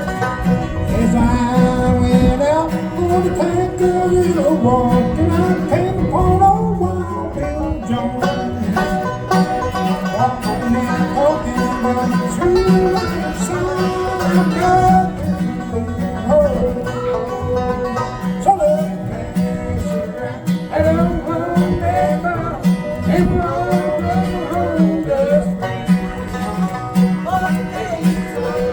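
Bluegrass music: banjo and guitar playing, with a melody line gliding over a steady rhythm.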